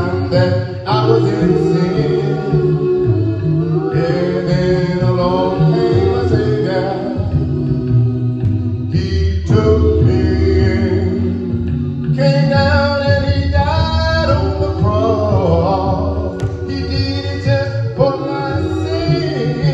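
Voices singing a slow gospel worship song, phrase after phrase, with short breaks between lines.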